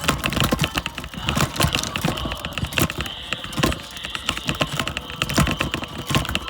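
Dense, irregular clicking and rattling, many sharp knocks a second.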